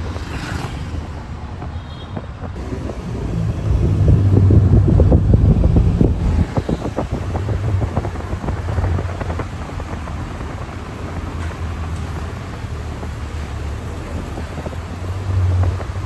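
A motor vehicle on the move: a low engine and road rumble that swells about four seconds in, with a run of knocks and rattles, then settles back to a steady drone. Wind buffets the microphone.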